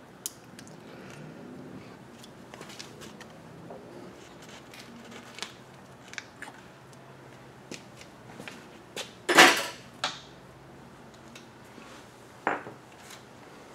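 Steel lathe change gears being handled and worked off their shaft on the headstock, giving scattered small metal clinks, a loud metallic clatter a little over nine seconds in and a shorter metal knock near the end.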